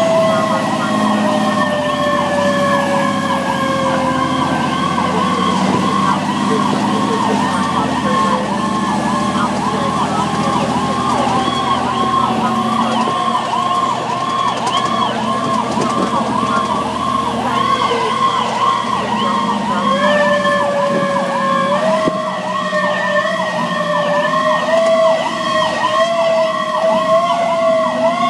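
Fire engine's siren heard from inside the cab: a fast yelping sweep, about two to three cycles a second, with a second, slower siren tone that falls slowly over the first several seconds and climbs again in steps in the last third, over the truck's running noise.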